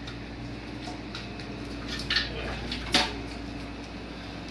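A few light metallic clinks and clanks, the loudest about three seconds in, from a hoist chain and engine metal as an engine hanging on a chain hoist is eased into the engine bay. A steady low hum runs underneath.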